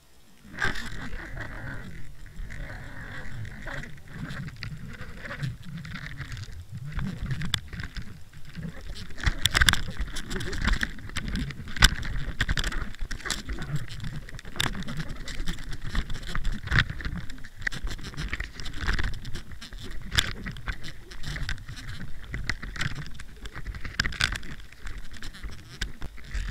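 Muffled underwater sound picked up by a camera hung on a mackerel handline: a low churning rumble of moving water with irregular clicks and knocks.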